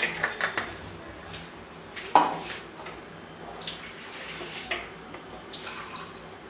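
Watery masala gravy in a pot on the stove, just thinned with water, spluttering and popping: a few wet clicks, then one louder splat about two seconds in, and small pops after.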